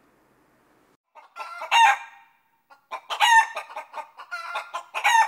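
A chicken clucking in quick runs, starting about a second in, with three louder calls standing out.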